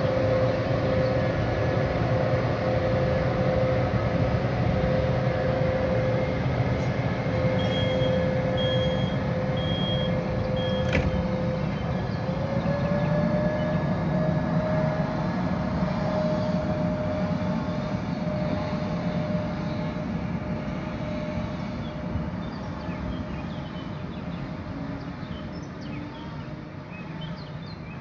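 Electric-hauled passenger train pulling out, with wheels rumbling on the rails under a steady drive tone from the locomotive. About twelve seconds in, the tone glides up in pitch as the train gathers speed. The sound then fades as the train draws away.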